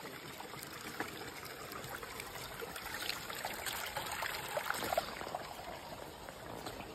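Water trickling and burbling steadily, with many small irregular bubbling notes.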